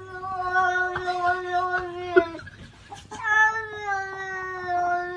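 A cat yowling in long, drawn-out calls held at a steady pitch. One call ends about two and a half seconds in, and a second begins just after three seconds in. A few light taps are heard over the first call.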